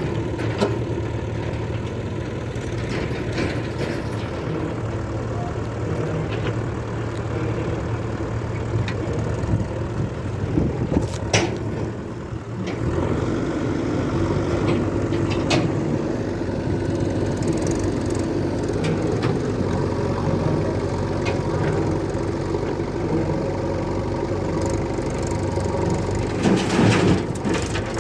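Diesel engines of a JCB 3DX backhoe loader and tractor running steadily, the engine note changing about halfway through, with a few sharp knocks and clanks, most of them near the middle and near the end.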